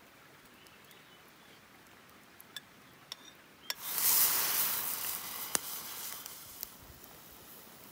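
A few light clicks, then about four seconds in a loud hissing rush with a couple of sharp cracks that fades over about two seconds: a campfire crackling and hissing under a steel cooking pot.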